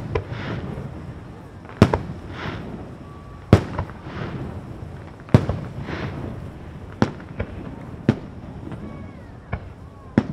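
Aerial fireworks shells bursting: a steady series of sharp bangs, roughly one every one and a half to two seconds, over a constant low rumble and hiss.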